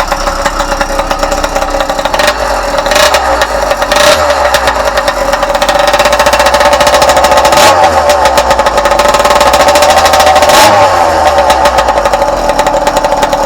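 A motorized bicycle's small engine running and revved up and down a few times, with several sharp cracks from the exhaust. It sounds smooth, and the owner says he has the motor dialed in.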